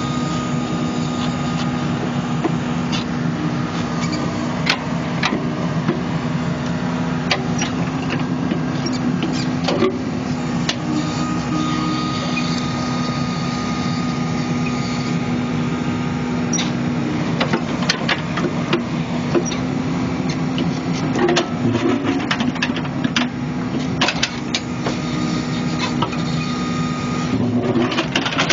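New Holland Kobelco E80B midi excavator running steadily with a held humming tone while it digs. Scattered sharp clanks and knocks come from the bucket and linkage working the soil, more often in the second half.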